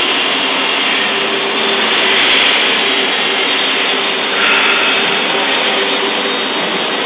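Rotary swaging machine running: a loud, steady mechanical noise with a constant hum through it, its tone shifting slightly about halfway through.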